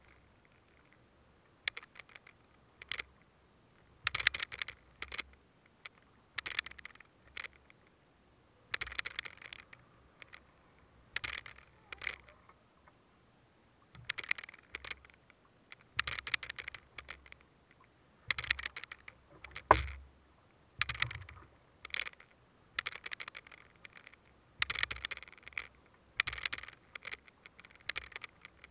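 A fishing hand line pulled in through a gloved hand, each stroke a short scraping rasp, coming about every one to two seconds. One louder knock comes about two-thirds of the way through.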